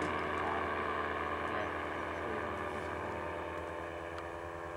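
Paramotor engine and propeller droning steadily overhead, fading slightly as the powered paraglider draws away.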